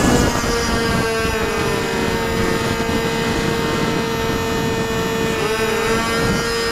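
RC model airplane's motor and propeller running steadily in flight, heard from a camera on the plane itself: one constant droning note over rushing air, dipping briefly in pitch near the end.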